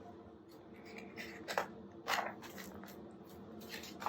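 A few soft, short rustles and light handling noises of a paper picture book being handled and its page turned.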